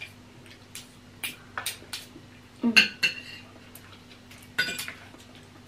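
Fork and spoon clinking and scraping against a plate during a meal: a scatter of short, sharp clicks, irregularly spaced, over a faint steady hum.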